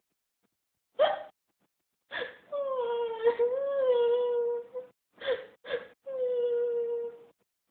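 A woman crying in high, drawn-out whimpering wails: a short sob, a long wavering wail, two short sobs, then a second long held wail. The crying is put on, acted rather than real.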